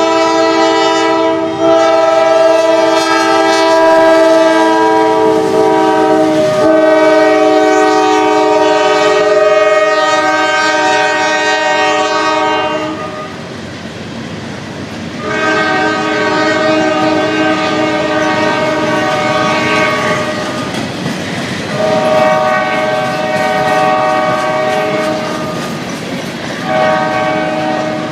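CSX freight locomotives' air horn sounding a chord in a series of long blasts, with a short blast near the end. Under it the freight cars roll past with a steady rumble and clickety-clack of wheels over the rail joints.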